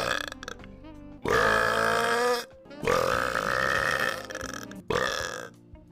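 A man burping loudly several times in a row: long, drawn-out burps of about a second each, with short breaks between them.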